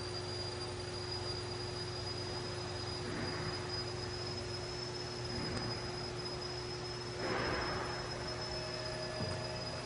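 Kalamazoo KS600 horizontal mitre band saw running without cutting: a steady motor hum with a constant high whine. A few brief, soft noises rise over it about three, five and seven seconds in.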